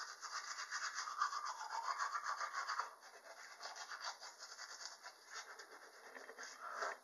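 Manual toothbrush scrubbing teeth fitted with braces in quick, even strokes. About three seconds in the brushing turns softer and more broken up.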